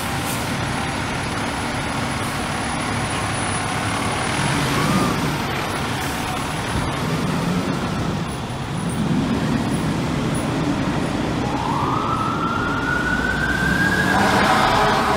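Heavy emergency trucks' engines running, a steady low rumble that swells a few times. In the last few seconds a siren winds up, rising in pitch.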